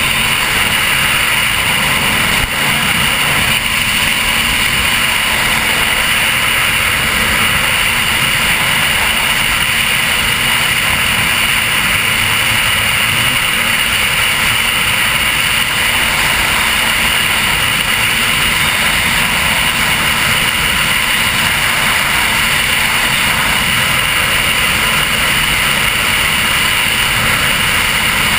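Offshore powerboat running at speed through choppy water: a loud, steady rush of engine noise mixed with wind and water, unbroken throughout.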